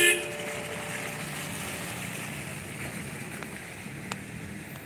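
Steady rain falling on wet pavement: an even hiss that fades slightly, with a few faint clicks.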